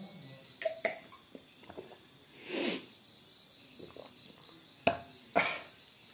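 A man coughing and huffing harshly after downing a glass of whisky, reacting to the burn of the spirit. There are a few sharp clicks in between, the loudest about five seconds in.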